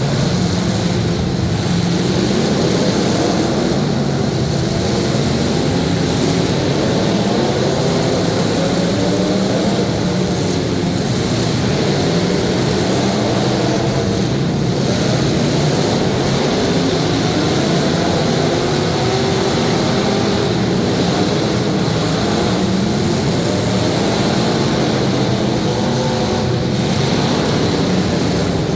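Demolition derby car engines running hard and revving, several at once, in a loud steady din with wavering pitch.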